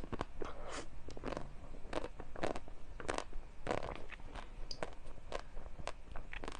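Close-up eating sounds: a run of irregular crunchy bites and chewing of a dessert, with sharp wet mouth clicks between them.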